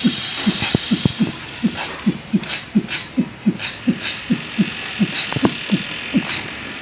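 A man beatboxing, imitating DJ dance music from loudspeakers with his mouth: an even kick-drum thump about three times a second, with hissing hi-hat-like hits on top.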